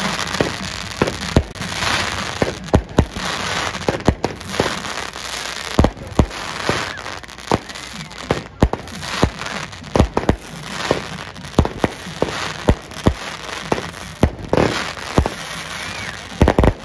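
A long string of firecrackers going off: rapid, irregular sharp bangs over a steady crackling haze.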